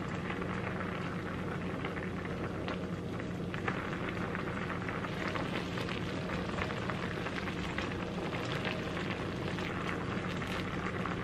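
Cream sauce simmering in a nonstick skillet, with a steady bubbling crackle and a spatula stirring through it. A steady low hum runs underneath.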